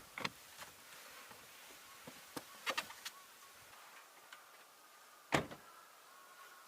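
Several sharp clicks and knocks, a few close together in the first three seconds and the loudest one about five seconds in, over faint background calls.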